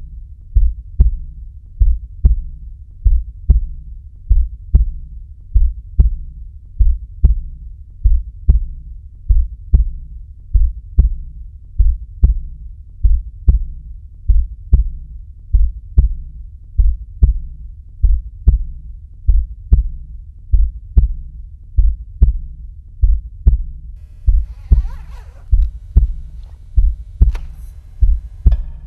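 Heartbeat sound: low double thumps (lub-dub) repeating in a steady, even rhythm. Near the end a faint, wavering higher sound joins them.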